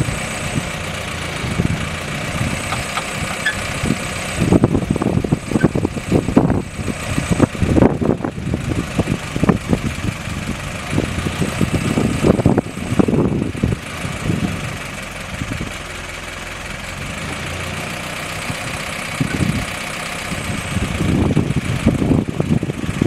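Willys CJ6 jeep engine running steadily at idle, driving the PTO winch that works the gin pole. Irregular gusts of wind rumble on the microphone.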